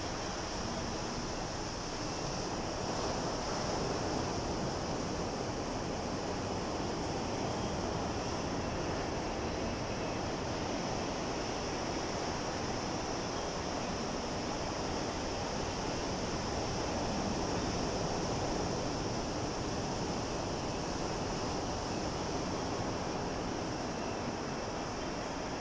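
Sea waves washing in, a continuous rush of surf that swells gently a couple of times.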